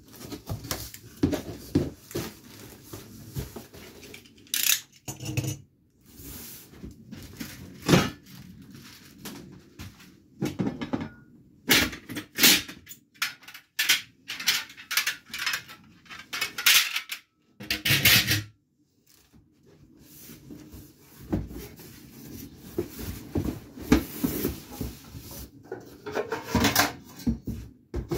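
Parts and packaging of a new Einhell TC-TS 2025/2 U table saw being handled during unboxing: irregular knocks and clatter as pieces are lifted and set down, with stretches of rustling.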